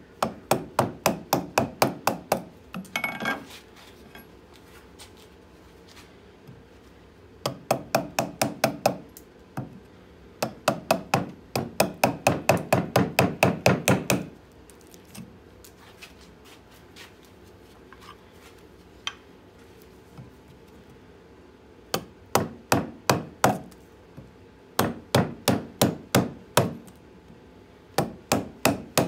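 Gouge driven into a birch log by quick, light mallet taps, about six a second, in runs of a second or more with pauses between. There is a short scraping cut about three seconds in.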